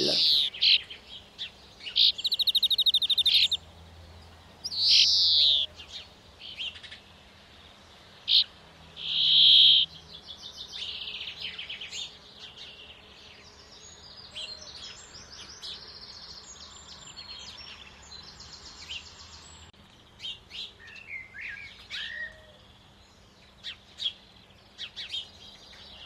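Small songbirds calling: a varied string of separate high chirps and calls, with a fast trill about two seconds in and louder calls near five and nine seconds in.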